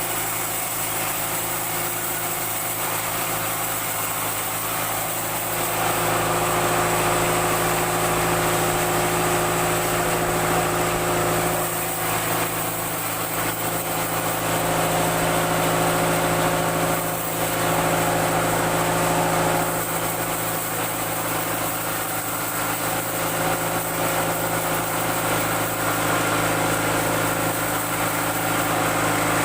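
Sawmill machinery running steadily, an engine-driven drone with a constant pitch and a hiss over it, growing a little louder for a few seconds at a time.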